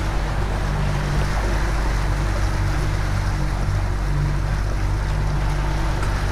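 Yamaha outboard motor running steadily at trolling speed, a low even hum, with water rushing past the hull and wind.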